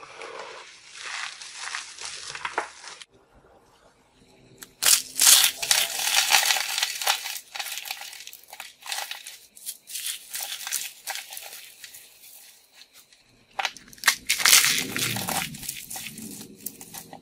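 Dry soap being crushed by hand: first a rustle of starch-coated soap shavings, then, after a short pause, crackling crunches as brittle soap blocks decorated with soap roses snap and crumble between the fingers. The crunching is loudest about five seconds in and again near the end.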